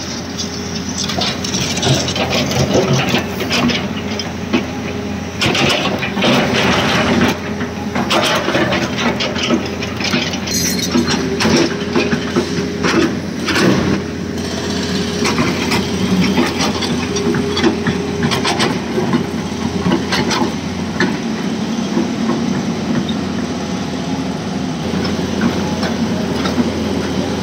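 Diesel engines of a quarry dump truck and excavator running steadily, with many irregular knocks and clatter over them, densest in the first half.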